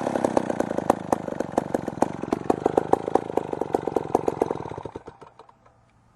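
Vintage Poulan Sandcast F3-100 two-stroke chainsaw engine running with slightly uneven firing, then shut off and dying out about five seconds in.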